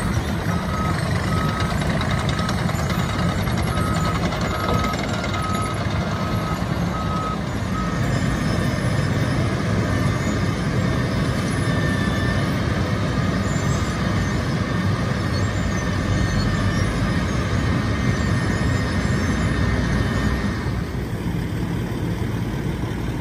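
Wirtgen W 120 CF compact cold milling machine running steadily while milling asphalt pavement, its diesel engine and cutting drum making a continuous grinding din. A reversing alarm beeps repeatedly for about the first eight seconds. The noise drops a little near the end.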